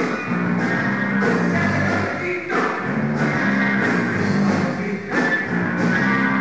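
Rock band playing a song live at a soundcheck, with drums, bass and electric guitar, a steady driving rhythm.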